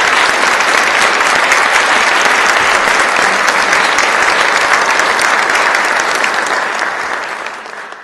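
Audience applauding: a dense, steady clapping that fades out near the end.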